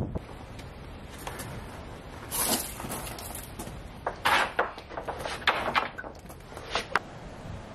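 Wooden boards knocking and scraping against each other as lumber is pulled and shifted in a stacked rack: a scattering of separate knocks and clatters over several seconds.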